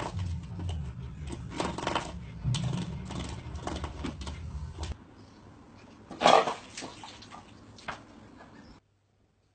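Puppies scuffling and scratching on a floor as they paw at a toy, with scattered clicks and knocks, and one louder short sound about six seconds in.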